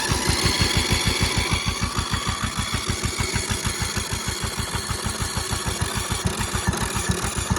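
Riding lawnmower's small engine running with a steady, even, rapid pulsing beat.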